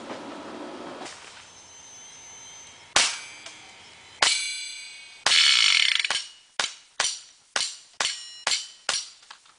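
CO2 airsoft pistol firing BBs into an open, running hard drive, each shot a sharp crack with a metallic ringing clang from the hit. Three spaced shots come first, then a rapid run of about eight more, roughly two a second.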